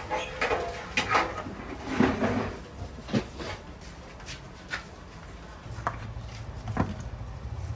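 Kitchen clatter: scattered knocks and clinks of cookware and utensils, busiest in the first half. A low steady hum comes in about two-thirds of the way through.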